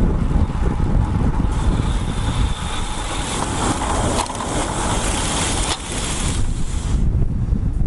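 Wind buffeting the microphone of a bicycle-mounted action camera while riding, a steady low rumble. A high hiss joins it about a second and a half in and cuts off near the end.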